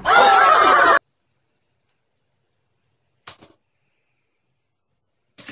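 A man's loud excited shout, rising and falling in pitch, cut off abruptly after about a second. Then silence, broken a little over three seconds in by a brief few clicks.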